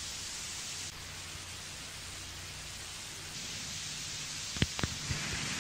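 Steady hiss with a low hum from an old telephone-call recording, broken by a few sharp clicks close together near the end.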